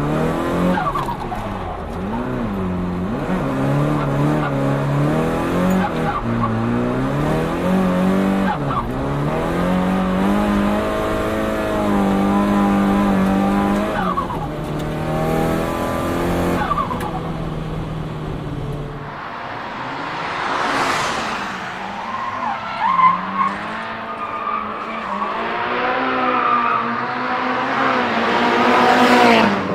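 Turbocharged Nissan Silvia S15 four-cylinder, fitted with an HKS GTIII turbo kit, revving hard and dropping back again and again as it is driven hard. The tone changes about two-thirds of the way through, with bursts of tyre squeal later on.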